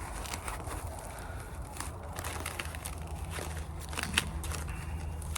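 Packaging being pulled open by hand: scattered crinkles and crackles of wrapping around a well-protected parcel item, over a steady low rumble of distant traffic.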